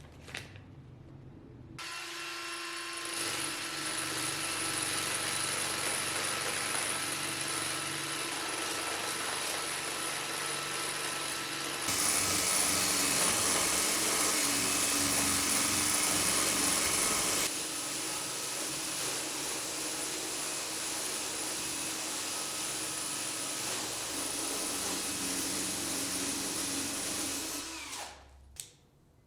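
Small electric power tool running steadily on metal work, louder for several seconds in the middle, then switched off near the end.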